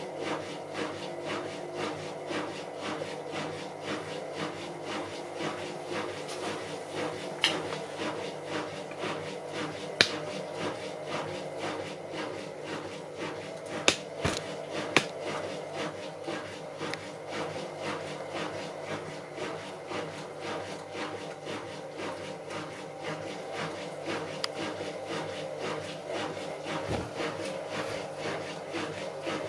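Bauknecht WA Plus 844 washing machine running with its drum turning: a steady hum under an evenly repeating knock, with a few sharp clicks, the sound of damaged drum bearings.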